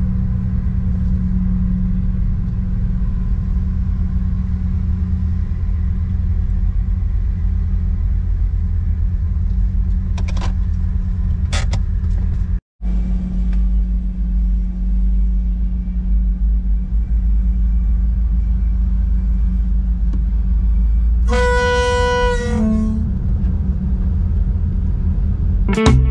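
Steady low engine rumble with a hum, broken once by an edit. About 21 seconds in, a single horn blast of about a second and a half sounds, stepping down in pitch as it ends.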